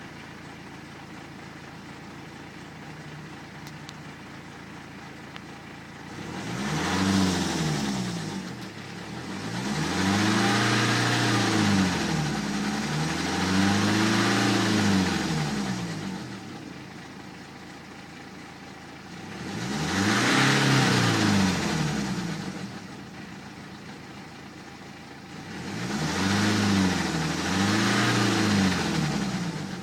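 BMW 118d's N47 four-cylinder turbodiesel idling, then revved up and let fall back several times in a row. The uploader ties the noise to the timing chain, a known weak point of the N47.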